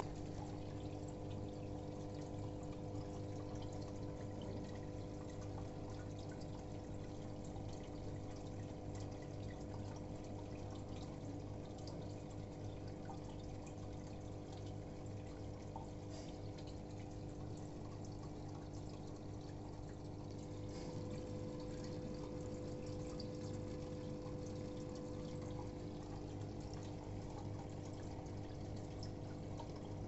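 Aquarium filter pump running with a steady hum, water trickling and splashing into the tank.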